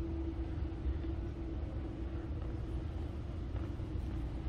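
Steady low rumble of a large exhibition hall's room tone, likely its ventilation, with a faint steady hum.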